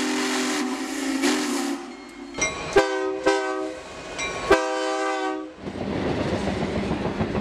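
A steam locomotive's chime whistle sounds a steady chord, then a diesel locomotive's air horn gives several blasts, the last one longer. Near the end the horn gives way to the heavy rumble of a diesel freight locomotive passing close by.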